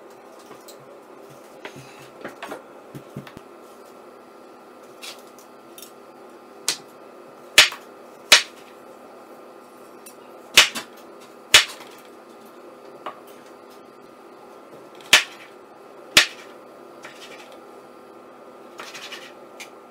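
Kitchen knife knocking on a wooden board as fruit is sliced: a few sharp knocks, mostly in pairs about a second apart, with fainter clicks of the blade in between, over a steady low hum.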